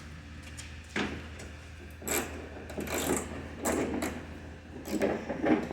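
Scattered knocks and rattles of car body parts being handled and pulled loose during a teardown, coming more often near the end, over a steady low hum.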